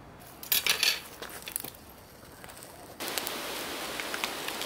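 A few sharp clicks and rustles, then, about three seconds in, slices of meat start sizzling with small crackles on a disposable charcoal grill tray.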